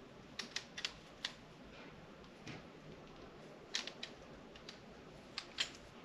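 Camera tripod being handled: faint, scattered clicks and knocks from its head and twist locks being worked, a quick cluster of about four in the first second or so and a few more in the last two seconds.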